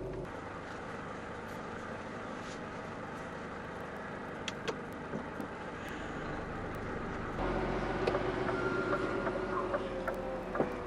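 Heard from inside the cab, an HGV lorry's engine and road noise run steadily at low speed, getting louder with a deeper rumble about seven seconds in. A few sharp clicks come near the end.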